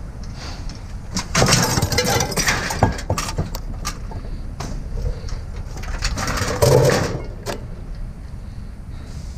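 A vehicle engine running with a steady low rumble, with scattered clicks and knocks and two louder surges of rattling noise.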